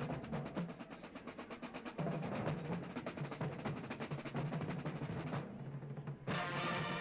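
Drum corps drum line playing a fast, steady percussion passage: snare drums with tuned bass drums underneath. About six seconds in the snares drop out briefly, then the brass horn line comes in loud.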